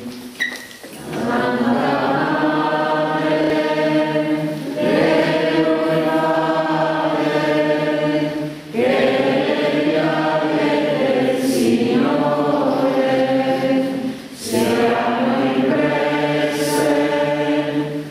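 A church congregation singing a slow hymn together between Stations of the Cross, in a few long held phrases with short breaks between them.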